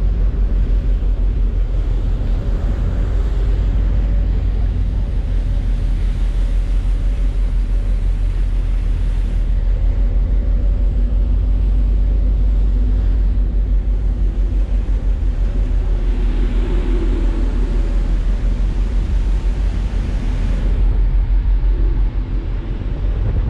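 Wind rumbling and buffeting on the microphone on the open deck of a moving ferry, with the ship's steady drone underneath.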